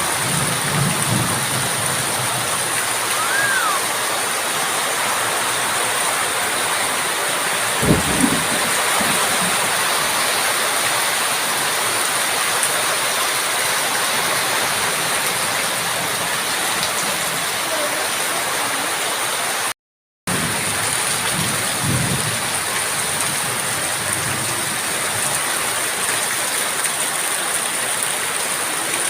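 Heavy rain falling steadily as a dense hiss, with low rumbles of thunder near the start and again later. A single short thump about eight seconds in, and the sound drops out for a moment about two-thirds of the way through.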